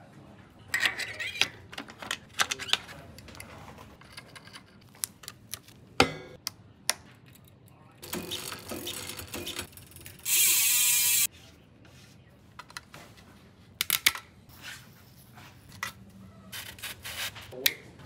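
Workshop assembly sounds: scattered clicks and taps of bike parts and tools, and about ten seconds in a loud buzz of about a second from the rear hub's freewheel as the wheel and cassette spin, an Industry Nine Hydra hub.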